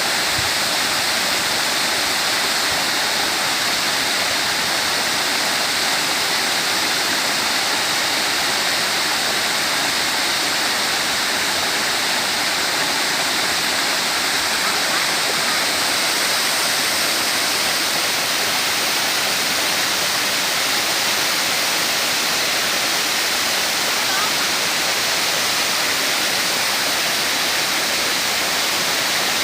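Waterfall: falling water rushing steadily and evenly, with no change in level.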